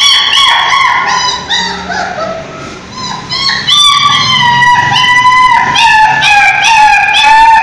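Puppy crying: a fast run of high-pitched whines and yelps, several a second, that dips for a moment about two seconds in, then comes back loud.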